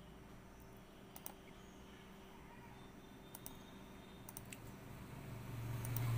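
Computer mouse buttons clicking a handful of times, several in quick pairs, over a faint background hum. A low hum swells near the end.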